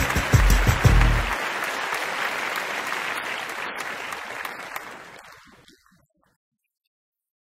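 Intro theme music with a heavy bass beat ends about a second and a half in, and applause runs on, fading away and cutting to silence about six seconds in.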